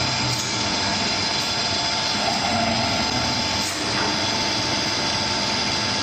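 Jumbo roll paper log saw with a 1-metre circular blade running: a steady machine hum with a high steady tone over it, and a few faint clicks.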